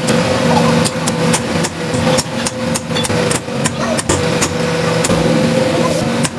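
Repeated hammer blows on a steel trunnion shaft and its sleeve, sharp metallic strikes at an irregular pace of about three a second. A steady machine hum runs underneath.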